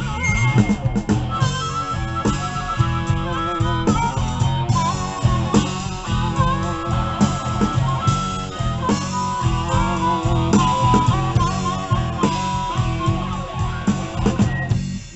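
Blues-rock band playing live: an electric guitar lead with bent notes over bass and a steady drum beat.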